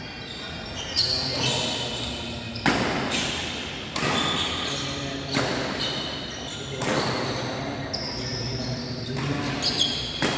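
Badminton rally: rackets striking the shuttlecock in a sharp exchange, a hit about every one and a half seconds, echoing around a large sports hall.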